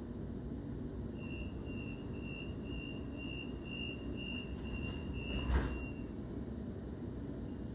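Suburban electric train's door-closing warning tone: a high, evenly pulsing beep lasting about five seconds, with a sharp thud near its end as the doors shut. Under it runs the steady low hum of the train standing at the platform.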